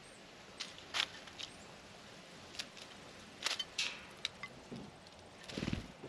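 Birds pecking at peanuts on a plate: irregular sharp taps and clicks, about ten of them, with a heavier knock and scuffle near the end.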